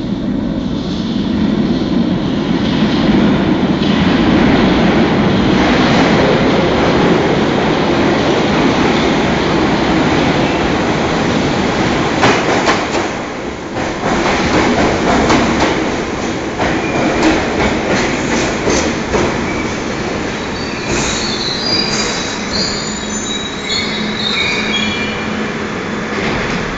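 London Underground train running at speed: a loud, steady rumble of wheels and rail, with bursts of clicking over rail joints around the middle and high-pitched wheel squeal near the end.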